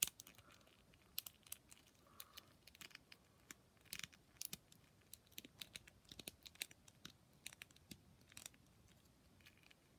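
Faint handling of a plastic action figure: scattered small clicks and rubs as it is turned in the hand and its limbs are moved.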